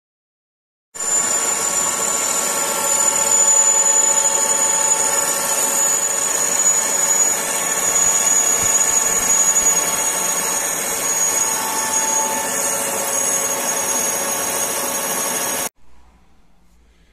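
Metal lathe turning a steel part, the cutting tool taking a cut: a steady machining noise with a high whine. It starts about a second in and cuts off suddenly near the end.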